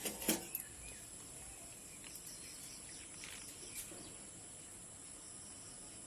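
Two short knocks right at the start, then a quiet background with a steady high insect drone and a few faint chirps.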